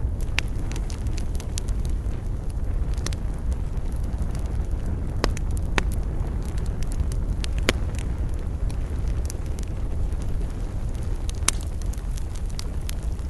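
Wood campfire crackling: scattered sharp pops and snaps, irregular and some louder than others, over a steady low rumble of the burning fire.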